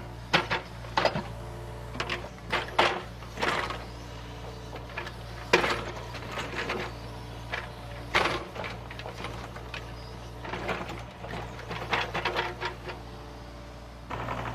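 Excavator engine running with a steady low hum, with scattered sharp knocks and clacks, the loudest about half a second, two, three and a half, five and a half and eight seconds in.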